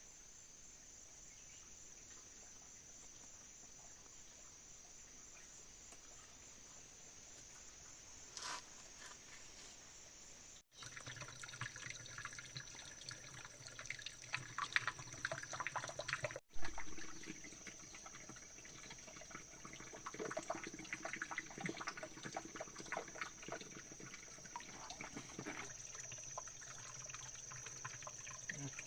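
Water splashing and trickling in irregular bursts, over a steady high-pitched insect drone. The sound cuts out briefly twice, about eleven and sixteen seconds in.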